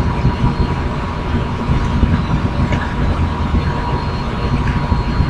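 A small motor running steadily, a thin high whine over a continuous low rumble.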